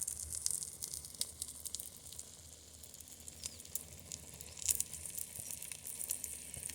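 Egg and vegetable omelette sizzling in butter and oil in a skillet, with a steady hiss and frequent small crackling pops.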